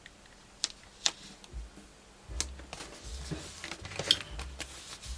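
Paper and craft supplies being handled on a desk: two sharp clicks in the first second or so, then from about two seconds in rustling with light taps and low thuds.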